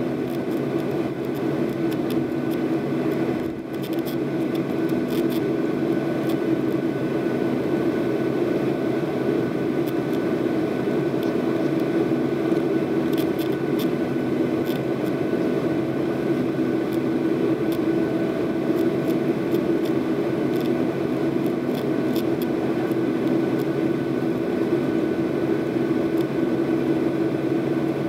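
Cabin noise inside a Boeing 737-800 taxiing on the ground: its wing-mounted CFM56-7B turbofans running at idle, a steady low hum with a few light ticks.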